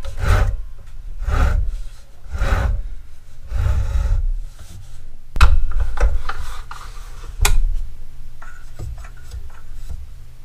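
Hands working a Chicago Electric sliding compound miter saw: four rasping, rubbing swishes about a second apart, then two sharp clacks from the saw's head and fittings, the first the loudest, followed by a few faint clicks.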